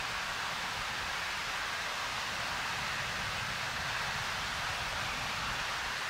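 Ryumon Falls, water pouring over the waterfall in a steady, unbroken rush, even in level throughout.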